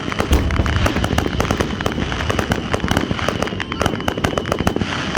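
Fireworks display going off in a dense barrage: rapid crackling and popping reports, many a second, with a deep boom about half a second in.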